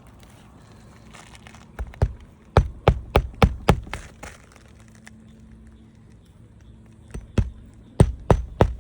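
Roofing nails being driven into an asphalt shingle: two quick runs of sharp strikes, about three a second, a few seconds apart.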